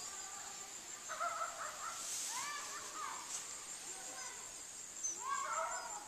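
Birds calling in short arching, crow-like calls several times over the field, over a steady high-pitched insect drone.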